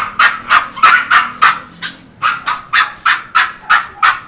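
Dog barking rapidly and without a break, a steady run of short, high-pitched barks at about three a second.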